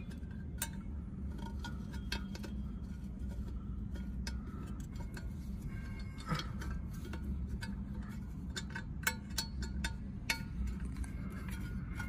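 Allen key turning in the cover screws of a sprinkler water-flow switch: scattered small metallic clicks, ticks and scrapes, over a low steady hum.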